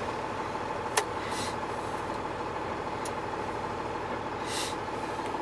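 Diesel truck engine idling steadily, heard from inside the cab, while the windshield washer and wipers run: a sharp click about a second in, and two short swishes of the wipers across the wet windshield.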